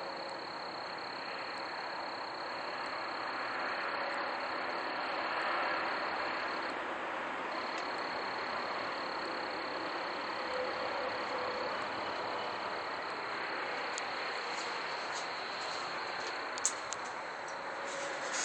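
A steady, dense outdoor din of unknown source, the unexplained 'strange sound' that the recordist could not describe or locate, with a thin high whine above it that drops out for about a second midway and a single sharp click near the end.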